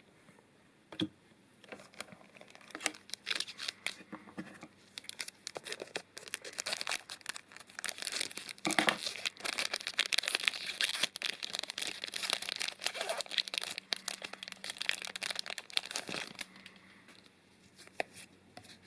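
Foil booster pack wrapper crinkling and being torn open by hand, a dense run of crackling that stops shortly before the end.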